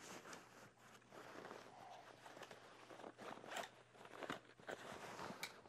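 Faint rustling of a hunting pack's fabric as a pocket zipper is opened and the pocket is checked, with a few small clicks.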